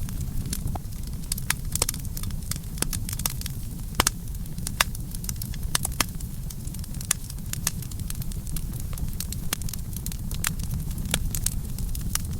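Campfire burning: irregular sharp crackles and pops of wood, several a second, over a steady low rumble of the flames.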